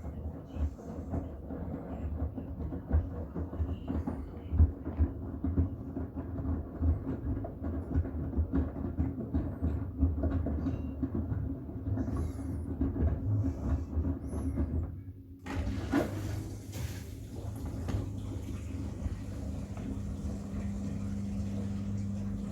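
Miele WCR 870 front-loading washing machine tumbling a load of wet bath towels, a rumbling drum with irregular thumps. About 15 seconds in the drum stops, there is a click, and a steady hum with a low tone follows.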